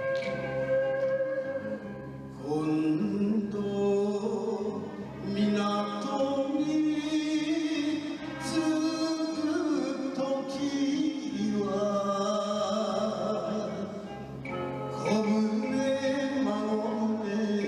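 A Japanese enka song sung by a solo voice over instrumental backing, the vocal line holding long, wavering notes.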